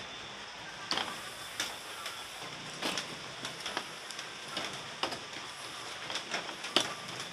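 Skewered chicken inasal sizzling on a grill: a steady hiss with irregular crackles and pops every second or so.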